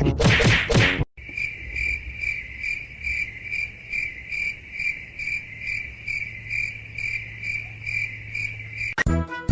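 A cricket chirping in an even, steady rhythm of about two to three high chirps a second, over a low hum. It follows a loud noisy sound that cuts off about a second in.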